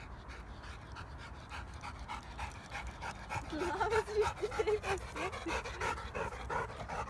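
Labrador retriever panting rapidly and rhythmically, out of breath from running up and down the hill.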